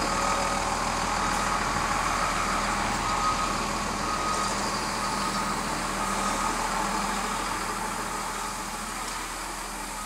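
An engine running steadily: a constant hum under an even rushing noise, growing a little fainter over the last few seconds.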